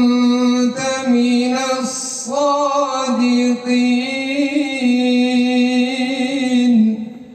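A male Quran reciter's voice chanting in a melodic tajwid style. He holds long drawn-out notes with a few brief breaks and stops about seven seconds in.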